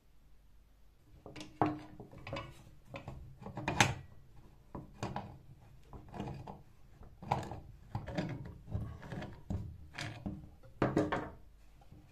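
Irregular knocks, clicks and scrapes from a screwdriver and the parts of an old hand bicycle pump, its wooden handle and metal rod, being worked and shifted on a wooden table. They start about a second in, with the sharpest knocks near four seconds and near the end.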